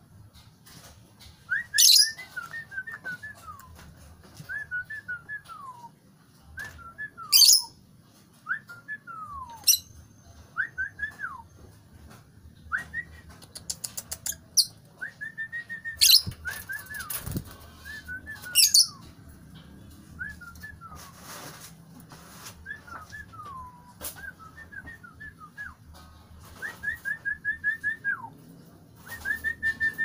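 Fischer's lovebirds chirping in an aviary: repeated short whistled phrases with falling tails, broken by several loud sharp shrieks. A brief flutter of wings comes about halfway through, and there is a quick run of rapid chirps near the end.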